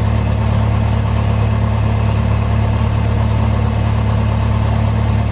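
Cessna 172's four-cylinder piston engine and propeller running steadily at low taxi power: an even low drone with no change in pitch.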